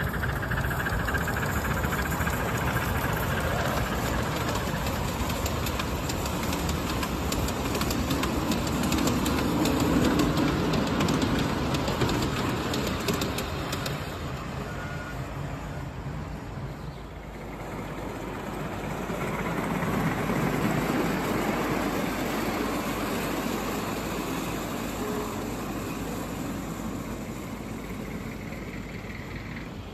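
Ride-on miniature steam train running along ground-level track: a steady rumble and clatter of small wheels on the rails, swelling as the train passes, twice.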